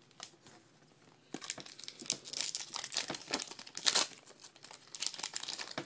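Plastic wrapper of a baseball card pack being torn open and crinkled: a run of irregular crackling that starts about a second and a half in and goes on for several seconds.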